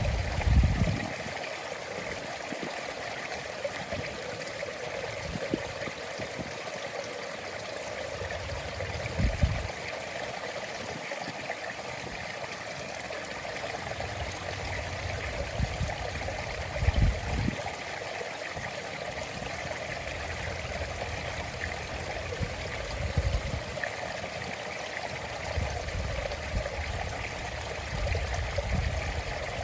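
A small stream running steadily over stones, trickling and gurgling, with several brief low rumbles coming and going.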